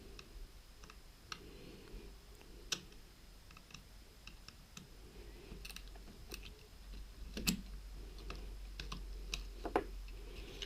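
Scattered faint clicks and taps from handling a camcorder's small screws and plastic casing during disassembly, over a faint steady low hum.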